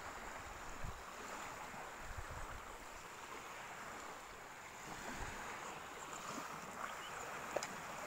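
Small waves washing on a sandy shore, a steady hiss, with wind buffeting the microphone now and then and a sharp click near the end.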